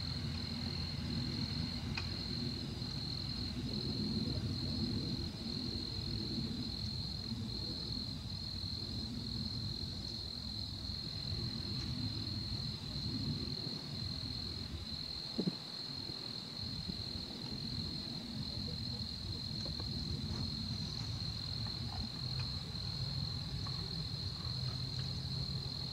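Crickets trilling in one steady high-pitched chorus, over a low background rumble.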